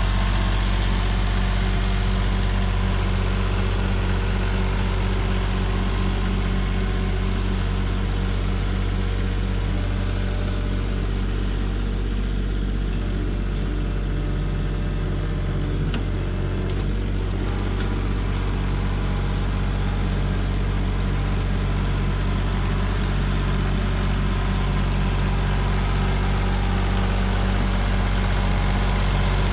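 Kubota compact tractor's diesel engine running steadily under load while it drags a rear box blade through loose dirt, dipping a little in the middle as the tractor moves farther off and then coming back up as it returns.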